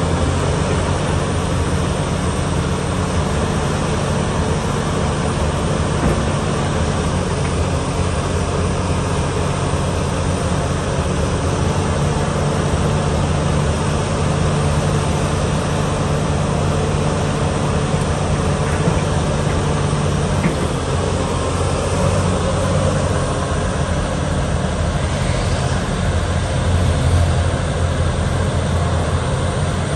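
Komatsu PC360NLC-10 excavator's six-cylinder diesel engine running steadily while the boom, arm and bucket are worked and the upper structure swings.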